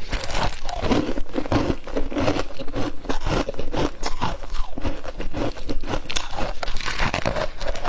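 Close-up biting and chewing of freezer frost: a dense, steady crunching of icy frost in the mouth.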